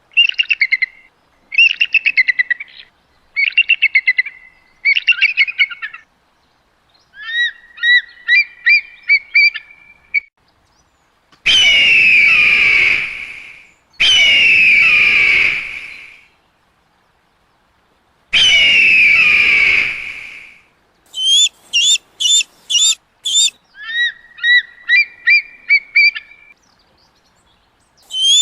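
Eagle calls cut together with short silences: four bursts of rapid, high chattering notes, a run of short whistled notes, three long loud screams, then quick series of sharp high notes.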